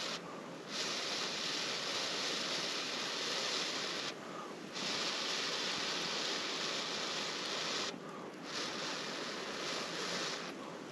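Long rushing blows of breath onto a glowing ember to burn out the bowl of a carved wooden spoon, each blow lasting about three to four seconds with a short break to breathe in between.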